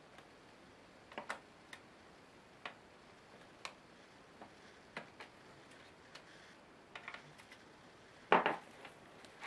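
Sparse small clicks and taps of a tool and fingers on a laptop's plastic case and Wi-Fi card, with a louder knock near the end as a screwdriver is set down on the table.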